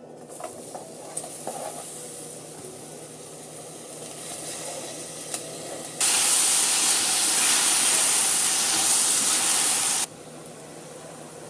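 Sausage, broccoli and button mushroom stir-fry frying in a hot pot: a quieter frying hiss with a few light clicks, then about six seconds in a loud, even sizzle that lasts about four seconds and cuts off suddenly.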